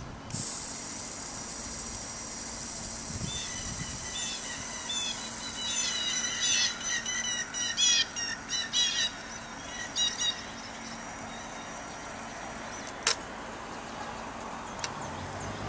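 Birds chirping and squawking in a run of short, repeated, quick calls, over a faint steady hum in the first few seconds, with one sharp click near the end.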